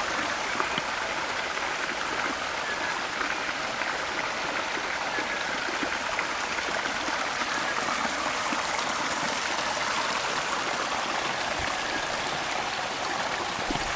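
Mountain stream cascading down a rocky slope: a steady, even rush of falling water.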